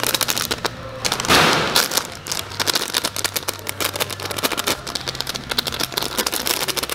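Fabric cat tunnel crackling and rustling as a kitten plays inside it and a hand pats and presses the outside: a dense run of sharp crackles, louder for a moment about a second in.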